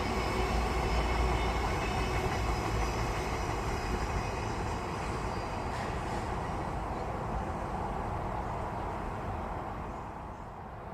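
A train running past on the rails, a steady rumble with a faint whine over it, dying away near the end.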